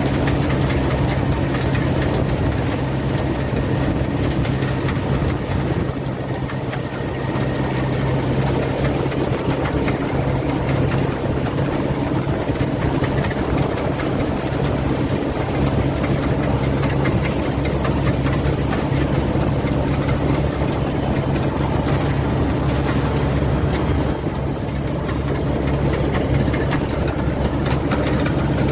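Rice combine harvester running steadily: a continuous heavy engine drone with a strong low hum, easing briefly twice.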